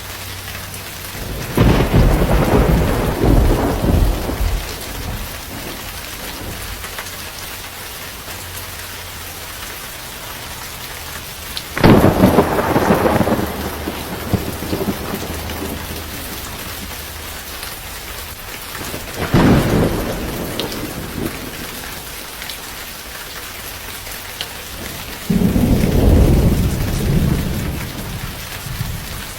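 Steady heavy rain in a thunderstorm, with four loud peals of thunder, each starting suddenly and rumbling away over a few seconds.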